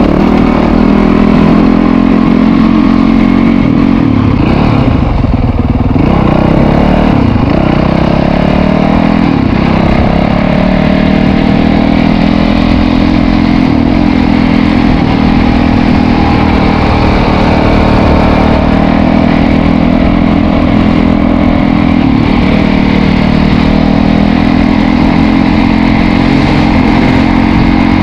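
Dirt bike engine heard from on board while riding, its pitch rising and falling a few seconds in and again about ten seconds in, then holding steady at cruising revs.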